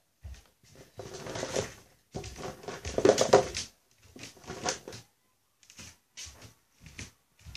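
Rustling and knocking of handling noise close to the microphone, in several bursts. The loudest burst comes about two to three and a half seconds in, followed by a few short knocks near the end.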